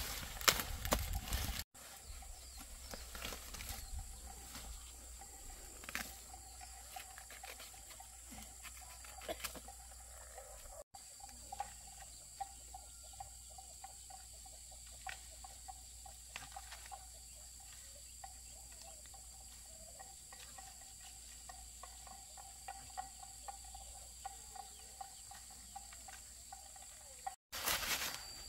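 Outdoor ambience of steady, high-pitched insect chirring with scattered faint clicks and rustles; it is louder and busier in the first couple of seconds.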